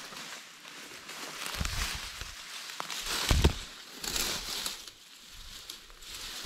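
Footsteps and rustling through tall weeds and grass, with dry stems crackling as snake tongs push the brush aside. Two dull thumps, one near two seconds in and a louder one about three and a half seconds in.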